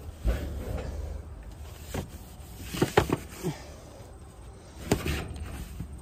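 A rag scrubbing a panelled garage door, the door knocking and rattling under the hand's strokes, with a handful of sharp knocks, the loudest cluster about halfway through.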